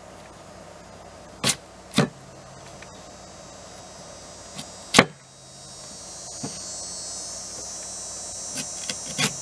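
Tomahawk blade chopping peeled sweet potato against a wooden cutting board: sharp knocks, two close together early, a loud one midway and a quick cluster near the end. A steady high buzz builds from about halfway through.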